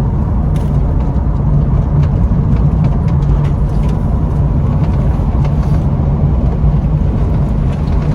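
Steady low hum inside the cabin of a 2013 Chevrolet Caprice PPV with its V8 engine running, with faint ticks over it.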